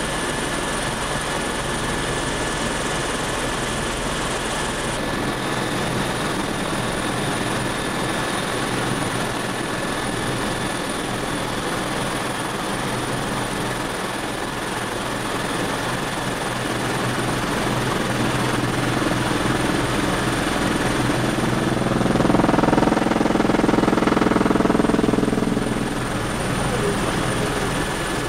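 Helicopter cabin noise in flight: a steady drone of engine and rotor with constant high whining tones, growing louder for a few seconds near the end.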